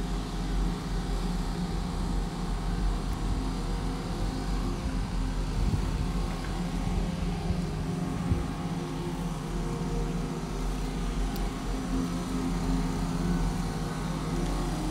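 An engine running steadily, a low, even hum without revving.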